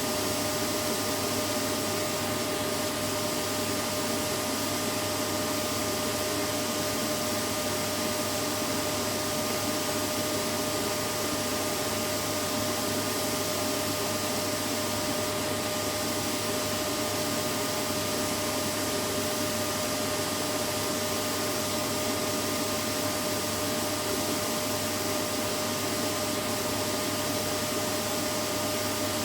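Vacuum cleaner running steadily: an unchanging motor hum and airflow hiss with a few fixed whining tones.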